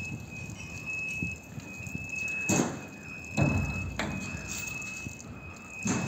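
Crane-hung hydraulic clamshell grab being lowered: a few knocks and a heavy thud about three and a half seconds in, over a steady high-pitched tone.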